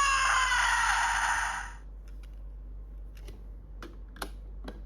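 Electronic sound effect from a DX Ultraman Trigger key toy's small speaker, a voiced call with gliding pitch that stops about two seconds in. After it come a handful of light plastic clicks from the toy being handled.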